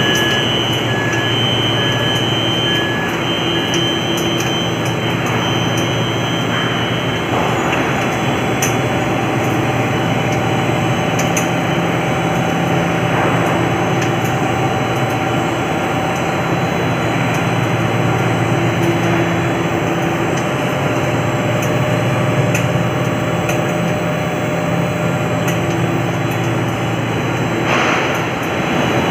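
Machinery running with a steady loud rumble and hum, with a few constant tones in it. Faint, evenly pulsed high beeps sound for the first seven seconds or so.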